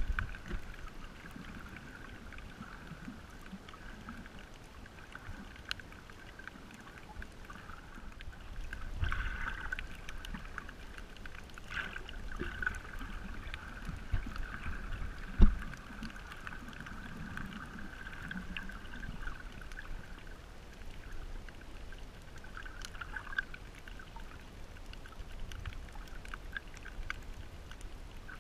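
Muffled underwater sound from a camera held below the surface over a reef: low water sloshing with a few dull thumps, the loudest about halfway through. A faint steady whine runs beneath it and fades out about two-thirds of the way in, with scattered light clicks throughout.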